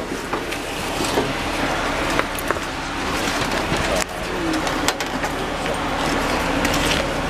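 Handling noise of a phone carried against sports gear bags: fabric rustling and scattered knocks, over a steady outdoor din with faint voices.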